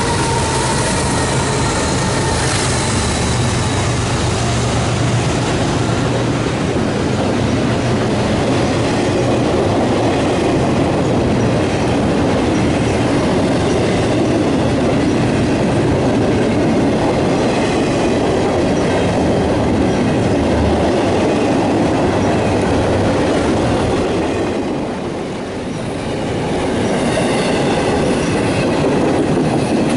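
Double-stack freight train rolling past: a steady rumble of steel wheels on the rails with clickety-clack over the joints and faint high wheel squeal now and then, easing briefly near the end before building again.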